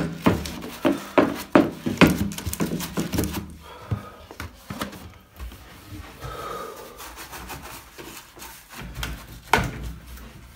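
Scrub pad rubbing on a wet glass shower door, scrubbing off hard-water deposits: a rapid run of rubbing strokes over the first three seconds or so, then quieter handling with a couple more strokes near the end.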